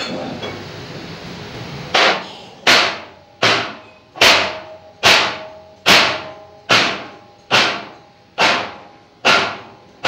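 Hammer blows on a large rolled steel sheet, about ten evenly paced strikes a little under a second apart starting about two seconds in, each ringing metallically.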